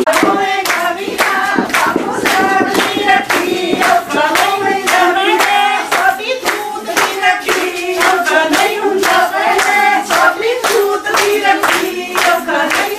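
Women's voices singing Punjabi boliyan for giddha, over steady rhythmic hand-clapping in time with the song, about three claps a second.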